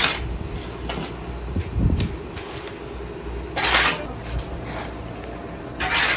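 Hot sand being stirred or scraped in a metal cooking pan: three short scraping strokes a few seconds apart, with lighter knocks between them, over a steady low hum.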